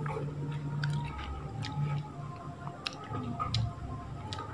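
A person chewing a mouthful of rice and chili eggplant (terong balado) close to the microphone, with a few short clicks through it.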